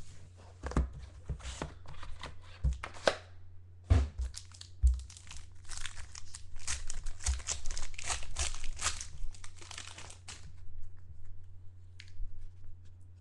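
A trading-card box and its foil pack being opened by hand: the wrapper crinkles and tears, with two sharp knocks about four and five seconds in. The crinkling stops at about ten seconds.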